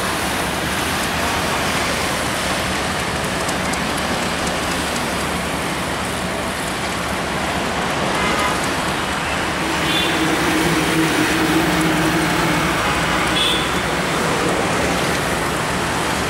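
Steady road traffic noise. A low horn sounds for about two and a half seconds past the middle, with a few short high-pitched toots.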